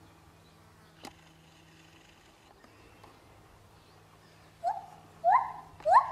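Lar gibbon singing: after a quiet stretch, a run of three rising whooping hoots begins about four and a half seconds in, each about half a second after the last and louder than the one before.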